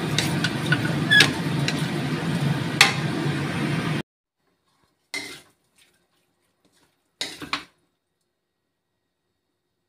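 A spatula scraping and clinking against a steel wok as cubed tofu is stir-fried, with a few sharp clicks over a steady low noise. About four seconds in, the noise cuts off abruptly, and it goes quiet apart from two short clatters of the spatula against the wok as the food is scraped out onto a plate.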